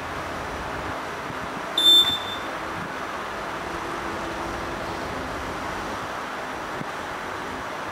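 Electronic reaction-timer buzzer giving one short, high-pitched beep about two seconds in: the start signal of an auditory reaction-time test. Steady background noise runs under it.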